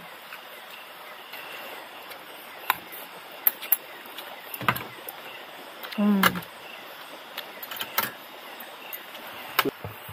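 Camping gear being handled while a campsite is set up: scattered knocks and clicks over a steady background hiss, with a short voice sound about six seconds in.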